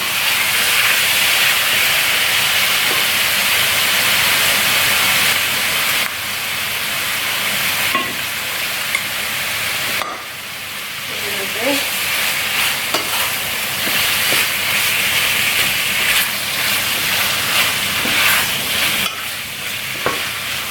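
Chicken pieces sizzling as they fry in hot oil with green curry paste, stirred with a spatula that clicks and scrapes against the pan now and then. The sizzle is loudest at first and eases somewhat about ten seconds in.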